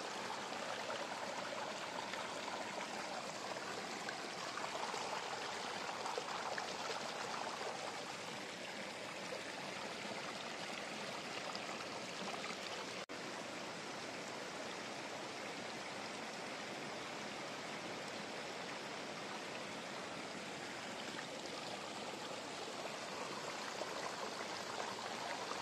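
Steady, even rushing background noise with no distinct events, like room hiss; it dips briefly about halfway through.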